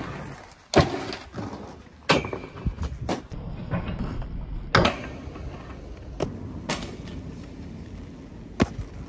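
Inline skates rolling on rough asphalt, broken by about seven sharp clacks and knocks as the skates hit, land and strike a metal barrier rail.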